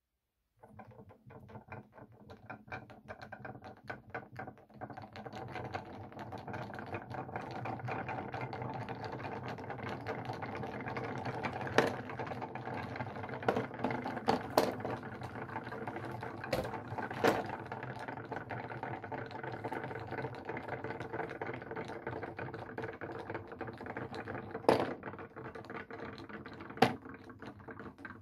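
Small wooden toy figures clattering along a wooden shelf: a dense, fast rattle of clicks over a steady hum, with a few louder knocks.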